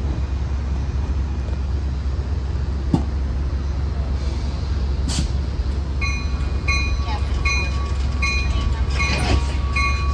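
Amtrak California bi-level passenger train standing at the platform with a steady low rumble. There are a couple of sharp clicks. About six seconds in, a repeating electronic warning beep starts, about one and a half beeps a second.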